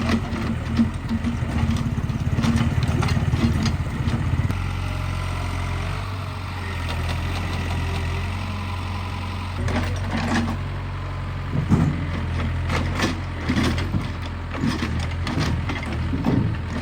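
Excavator engine running, working harder for the first few seconds and then settling to a steady run, with scattered short knocks in the second half.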